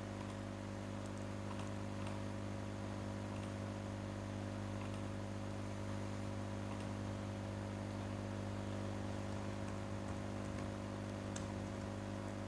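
Steady low electrical hum with a faint hiss, the background noise of the recording chain, with a faint click near the end.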